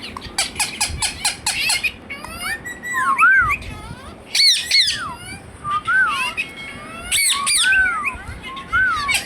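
Indian ringneck parakeet calling: a quick run of short chirps, then a series of arching whistled notes, broken by two loud harsh squawks about four and a half and seven seconds in.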